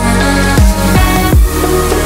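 Electronic dance music with a heavy, steady beat and deep bass drops about every two-thirds of a second.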